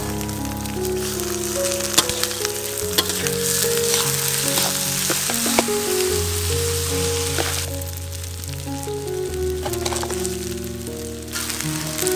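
Raw rice sizzling as it is stir-fried in hot oil in a metal wok, with a metal spatula clicking and scraping against the pan. The sizzle eases about two-thirds of the way through and picks up again near the end, over soft background music.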